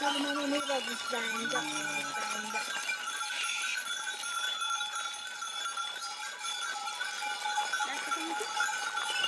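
A flock of sheep and goats on the move, with many small livestock bells jingling. Sheep bleat twice in the first two seconds and briefly again near the end.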